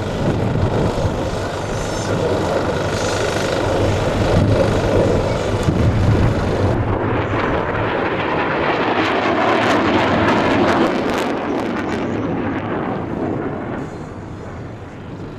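F-111C jet with both TF30 afterburning turbofans lit in full afterburner for a dump-and-burn, a loud rough rushing jet noise. About halfway through it turns crackly, and it fades near the end as the jet moves away.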